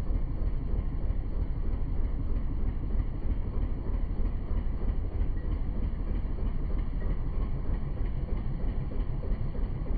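Steady low rumble of a boat under way, with no clear engine note and no breaks.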